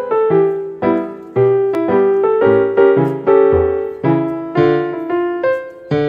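Background piano music: notes and chords struck about twice a second, each ringing and fading before the next.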